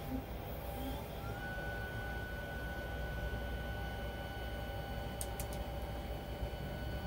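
Sky-Watcher EQ6R Pro equatorial mount slewing under motor drive: a steady whine from the stepper motors that rises in pitch about a second in as the slew speeds up, then holds.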